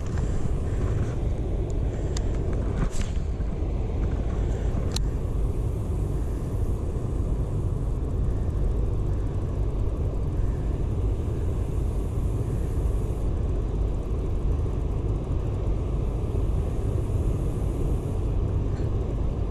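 Steady low rushing rumble of water pouring through the spillway, unbroken throughout, with a couple of brief clicks about three and five seconds in.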